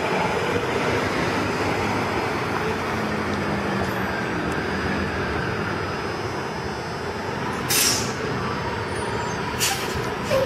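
City bus engine running as the bus rolls in and pulls up to the curb, with two short bursts of air-brake hiss near the end.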